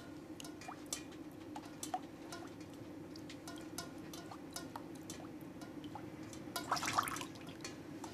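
Water drops falling one by one into a saucepan partly filled with water, each landing as a short ringing plink at an irregular pace. It is meltwater leaking in during a sudden thaw. The drips come over a steady low hum, with a quick flurry of louder drips about seven seconds in.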